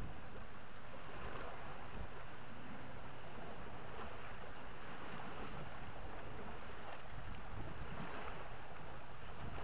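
Steady wind and river-water noise, even throughout, with no distinct motor whine from the small electric crawler.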